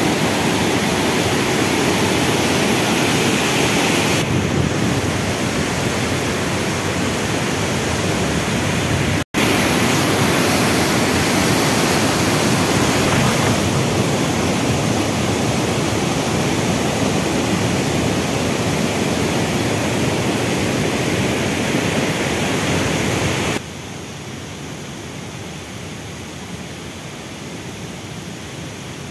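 Steady rush of a swollen, muddy river torrent pouring over boulders. It cuts out for a split second about nine seconds in, and about three-quarters of the way through it drops abruptly to a quieter rush.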